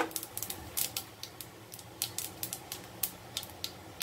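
Mustard, cumin and fennel seeds crackling in hot oil in a nonstick frying pan as they are tempered: irregular sharp pops, several a second.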